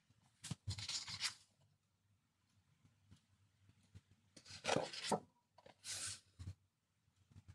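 Large sheets of Maja Design scrapbooking paper rustling and sliding against each other as they are handled and turned over, in several short bursts, the loudest about halfway through.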